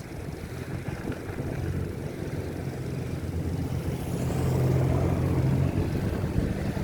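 A motor vehicle's engine running, growing louder to a peak about two-thirds of the way through as it passes close, over the hiss of street noise.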